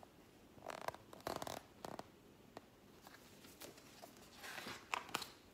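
Faint rustling of paper and soft taps as a picture book is handled and its page turned, in several short, separate bursts.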